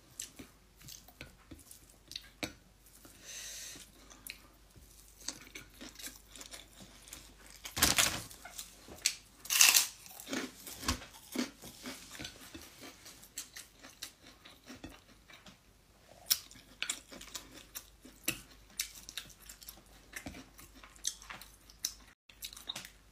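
A person eating rice by hand from a plate and chewing with her mouth close to the microphone: irregular short clicks and chewing sounds, loudest about eight and ten seconds in.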